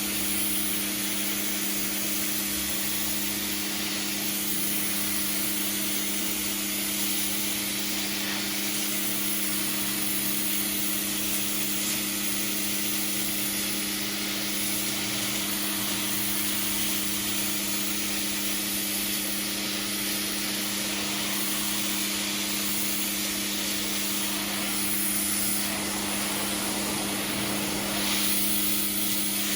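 Pressure washer spraying water onto concrete: a steady hiss of the jet over the constant hum of the washer's motor.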